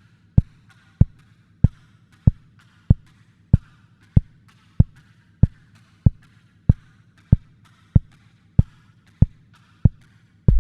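Minimal dark electronic music: a lone deep kick drum thumping steadily about every 0.6 seconds over a faint low drone and light hiss. Near the end, a loud deep bass note comes in and holds.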